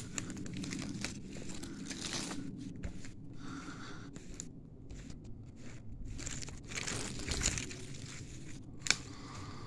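Footsteps crunching and rustling through leaf litter and undergrowth on a woodland path, with a single sharp crack near the end.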